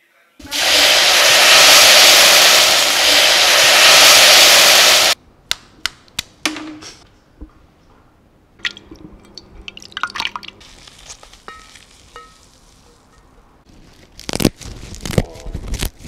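A loud, steady sizzling hiss from a hot pan starts suddenly and cuts off abruptly after about five seconds. Then come soft wet squelches and light clicks of hands working food in a glass bowl, and a few sharp snaps near the end.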